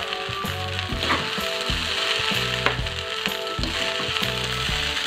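Fried rice sizzling in a hot nonstick wok as a spatula scoops and turns it, with a couple of sharp scrapes of the spatula on the pan. Light background music runs underneath.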